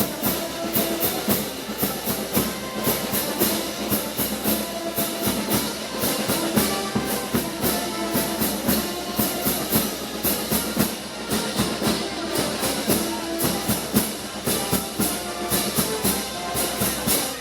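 Live band music from a Moros y Cristianos festival: held notes over drums, with a steady beat of sharp percussion strokes several times a second.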